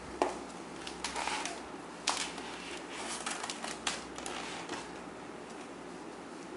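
Cardboard flaps and thick pages of a lift-the-flap board book being flicked open and turned by small hands: a string of sharp taps, clicks and short rustles, the loudest about two seconds in, dying away in the last couple of seconds.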